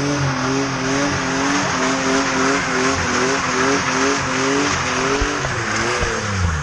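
Car engine held at high revs while the car spins donuts, its pitch wavering up and down about twice a second over the steady squeal and hiss of spinning rear tires. The revs drop near the end.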